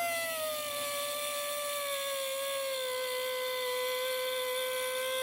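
High-speed rotary tool whining as it cuts slits into broken exhaust manifold studs on a 5.7 HEMI, so that a screwdriver can turn them out. The pitch sags over the first few seconds as the tool bites in under load, then holds steady.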